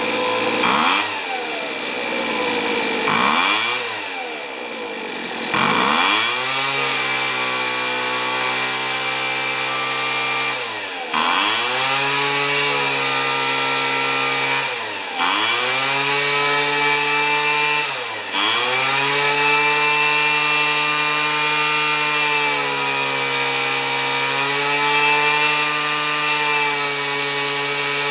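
Small two-stroke engine of a Weed Eater leaf blower, revved up and down in a few short blips, then held at high speed with three brief drops in revs that pick back up. The engine is running during adjustment of the carburettor's low-speed mixture screw.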